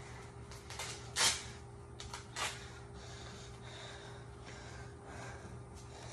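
A person's two short, sharp breaths through the nose, about a second apart, the first the louder, over a steady low hum.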